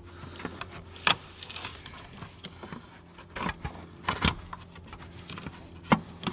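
Scattered clicks and knocks of hard plastic and metal parts being handled as the crankcase ventilation (CCV) filter housing is worked loose by hand. The sharpest knock comes about a second in, with more clacks in the second half.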